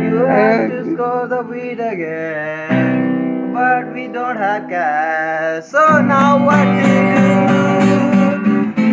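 A man singing while strumming chords on an acoustic guitar. The strumming gets louder and fuller about six seconds in.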